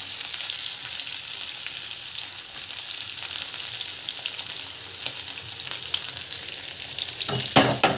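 Sliced onion and green chillies sizzling in hot oil in a frying pan, a steady frying hiss. A few loud knocks come close together near the end.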